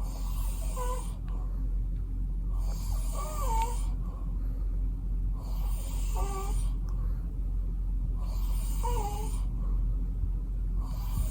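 Man snoring in his sleep, one snore about every three seconds, each with a wavering whistle-like tone, over a steady low hum.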